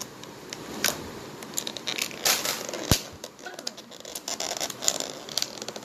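Fingers prying and scraping at the rim of a tight, airtight plastic takeaway container lid, with plastic crinkling and rustling and scattered clicks. One sharp snap about three seconds in is the loudest sound.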